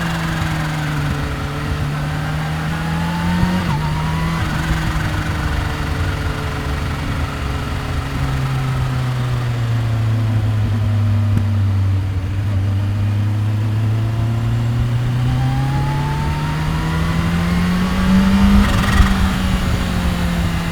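2015 Kawasaki Ninja H2's supercharged 998 cc inline-four running on the move, with wind and road noise underneath. Its revs step briefly about three and a half seconds in, ease down slowly to a low, even note through the middle, and climb again toward the end.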